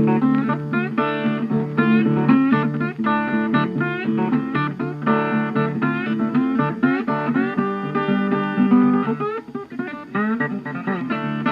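Background music: acoustic guitar picking a quick run of plucked notes, some of them bent or slid, over steady bass notes.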